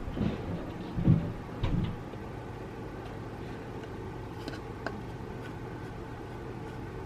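Soft knocks and bumps of small plastic RC parts being handled, in the first two seconds, then a steady low hiss with a couple of faint clicks.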